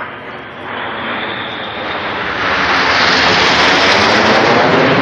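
Red Arrows formation of BAE Hawk jet trainers flying overhead with a steady jet roar. The roar swells about a second in and is loudest over the second half.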